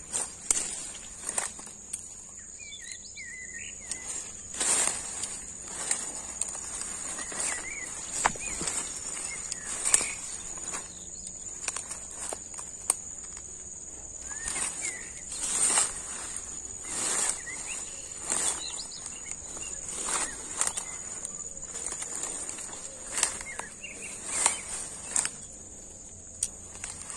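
Footsteps and the swish of brush as someone pushes through dense undergrowth, in irregular steps about a second apart. Behind them insects keep up a steady high-pitched drone, with a few faint bird chirps.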